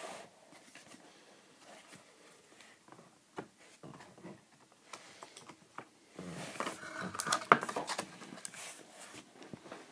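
Faint clicks and taps of trading cards being handled and set down. About six seconds in, a foil card-pack wrapper is picked up and crinkles in the hands.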